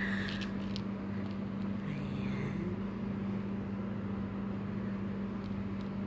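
A steady low mechanical hum, even in level throughout, with a few faint clicks.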